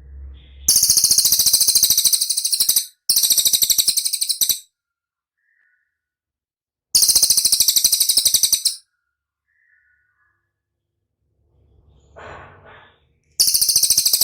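Cililin song from a masteran recording: four very rapid, high trills, each lasting one and a half to two seconds, with pauses between them. A fainter, lower call comes shortly before the last trill.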